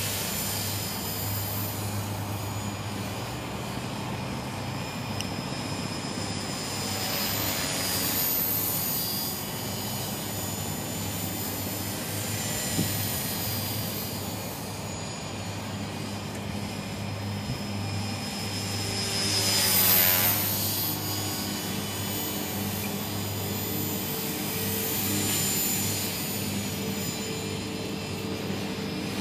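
Align T-Rex 450 Pro electric RC helicopter flying overhead: a steady rotor buzz and motor whine that swells and fades as it circles, loudest as it passes close about twenty seconds in.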